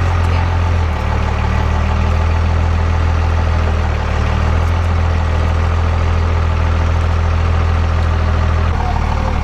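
Diesel pickup truck engine idling steadily with a low, even rumble, its pitch shifting slightly a few times.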